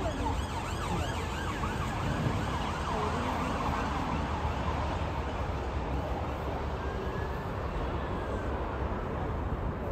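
Airbus A380 touching down and rolling out: steady jet engine noise with a low rumble. Over the first three seconds a run of short high chirping calls rises and falls above it.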